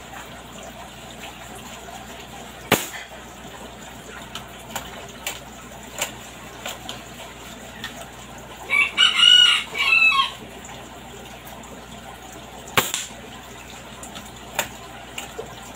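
A rooster crows once, about halfway through. Two sharp cracks about ten seconds apart, one near the start and one near the end, from a Nimrod air rifle being test-fired, with fainter clicks of the swing-type reloader being worked between them.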